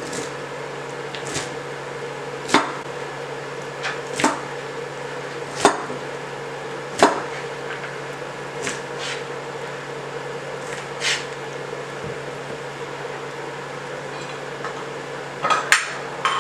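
Knife knocking on a wooden cutting board in single, unhurried cuts, one every second or two, over a steady low hum.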